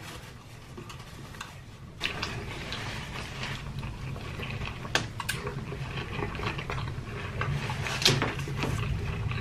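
Close-miked eating sounds: a big bite into a soft burger bun and wet, crackling chewing, starting about two seconds in, with a few sharp mouth clicks.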